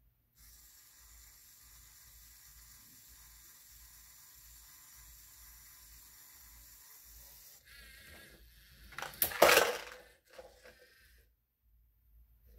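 LEGO robot's motors whirring faintly and steadily as the grabber and track lift the toy trash can. About nine seconds in comes a burst of hard plastic clattering and knocking as the can reaches the top of the container and is tipped.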